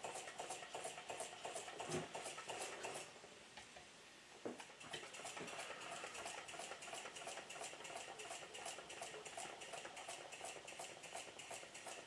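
Small live-steam model traction engine running, giving a faint, even ticking of about five beats a second. After a thump about three seconds in the ticking stops, then starts again after a click a second and a half later.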